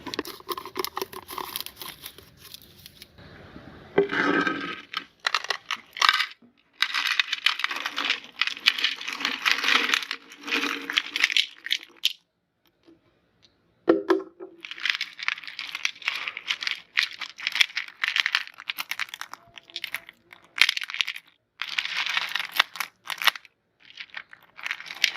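Orange candies being handled: irregular bursts of crackling and clattering, each lasting a few seconds, with short pauses between.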